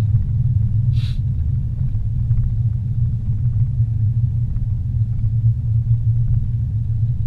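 Steady low rumble of a car driving at speed on a paved road, heard from inside the cabin. A brief faint hiss comes about a second in.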